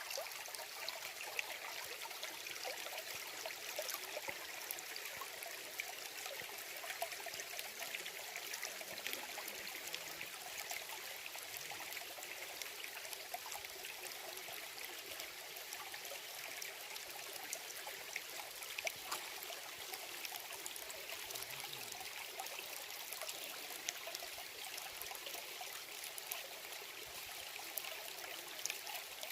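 A small stream trickling and babbling steadily, with many small splashes.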